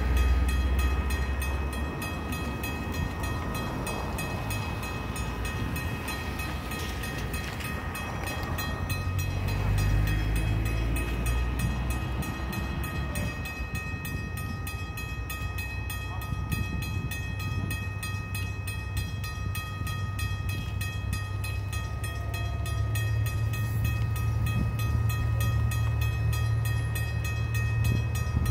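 Railway level-crossing warning bell ringing continuously in rapid, even strikes, with the barriers down and the lights flashing for an oncoming train. A low rumble sits underneath and grows somewhat louder in the second half.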